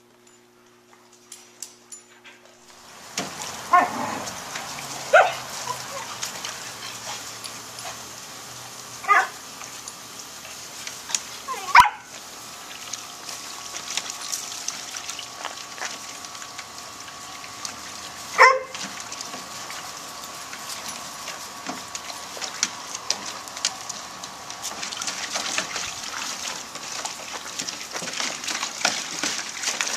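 Puppies splashing about in a plastic kiddie pool, water sloshing continuously from about three seconds in, with several short yelps and barks scattered through.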